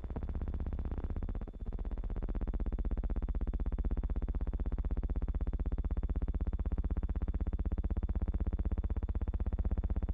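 A steady, synthesizer-like electronic drone that starts abruptly: a strong low hum with slowly drifting overtones and a fast, even pulsing, dipping briefly about a second and a half in.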